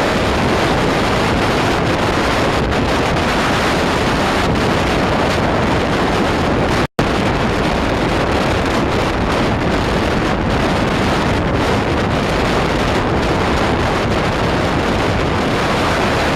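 Strong wind buffeting the microphone in a loud, steady roar of noise that cuts out for an instant about seven seconds in.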